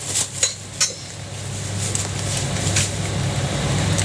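A few sharp clinks of metal cooking utensils at a jianbing street stall in the first second, followed by a steady low rumble that grows louder.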